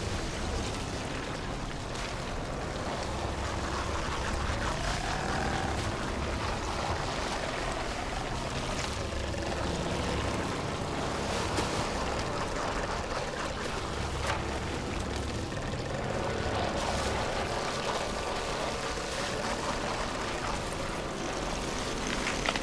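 Horror film soundtrack: a steady low rumbling drone with scattered faint clicks and creaks.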